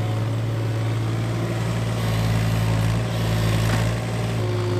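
Case CX17C mini-excavator's diesel engine running steadily under hydraulic load as the bucket lifts and swings a load of dirt, the engine note swelling and easing with the work. Near the end there is a brief rush of soil falling from the bucket.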